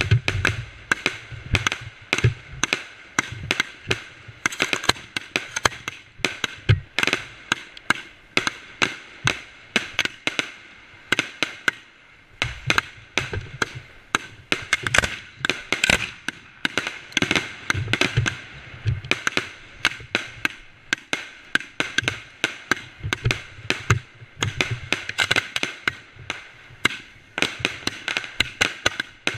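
Ground fireworks going off: a rapid, uneven string of sharp cracks and pops, several a second, with no letup.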